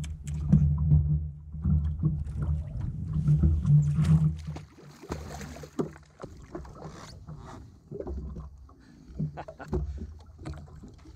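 Snapper being brought to the side of a fishing jet ski and lifted from the water: splashing and scattered knocks. A heavy, gusty low rumble fills roughly the first four seconds.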